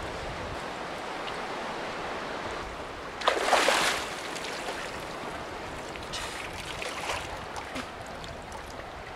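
Seawater lapping and sloshing against a moored trimaran's hulls, with one louder wash of water about three seconds in.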